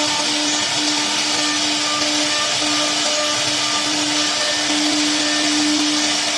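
3-axis CNC router's spindle running steadily, a constant hum-whine over a loud even hiss.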